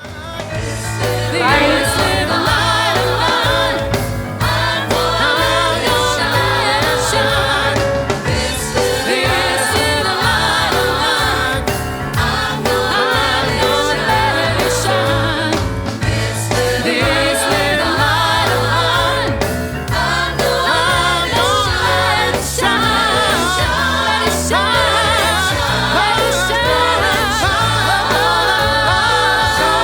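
Recorded music with a choir or group of voices singing over a band with a steady bass and beat.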